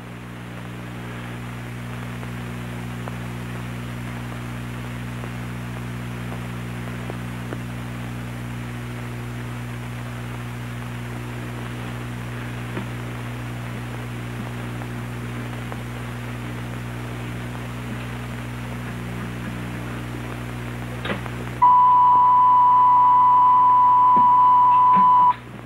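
Steady low hum and hiss, then a sudden loud steady 1,000-cycle tone that holds for about three and a half seconds and cuts off abruptly. The tone is the warning signal of a shock-avoidance apparatus, sounding 15 seconds ahead of a shock unless the lever is pressed.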